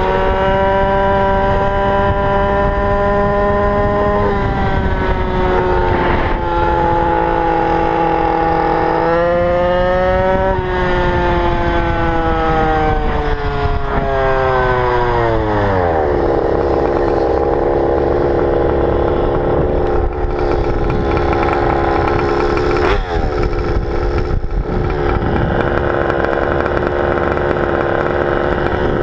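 Go-Ped GP460 46cc two-stroke engine running at high revs, its pitch easing down slowly, rising briefly about nine seconds in, then dropping steeply over several seconds to a steady lower speed for the rest.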